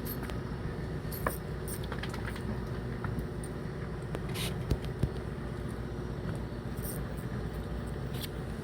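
Fishing boat's motor running with a steady low hum, with a few faint clicks and taps over it.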